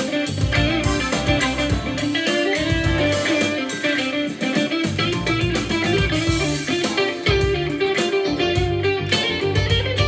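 LUXARS S-G62 electric guitar played with a pick in a continuous run of notes.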